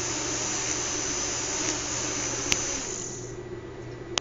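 Small fischertechnik electric motor on a monorail carriage running with a steady whirring hiss and hum, cutting out about three seconds in. A single sharp click comes just before it stops.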